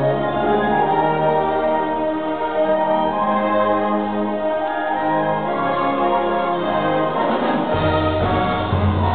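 A live orchestra of flutes, clarinets, violins and brass playing held chords. Near the end a deep bass comes in under them.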